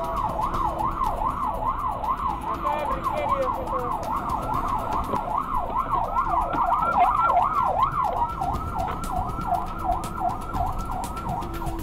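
Police patrol car siren in a fast yelp, its pitch rising and falling about two to three times a second, over a low vehicle rumble.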